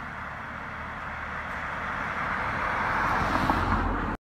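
A car approaching along the road, its tyre and engine noise growing steadily louder, then cutting off suddenly near the end.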